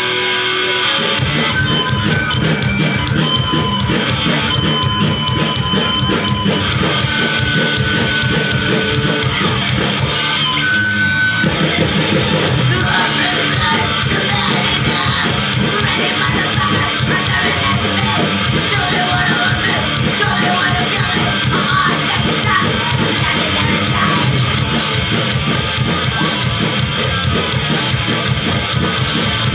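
Punk rock band playing live: distorted electric guitar, with bass and drums coming in about a second in. There is a short break in the drums and bass about ten seconds in before the full band resumes.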